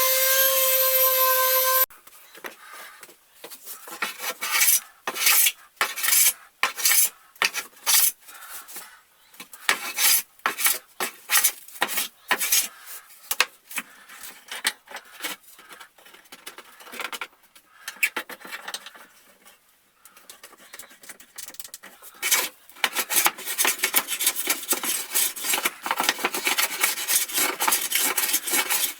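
Wood being abraded by hand: irregular scraping strokes, one or two a second, that speed up into a fast, continuous back-and-forth rubbing near the end. A steady machine whine stops about two seconds in.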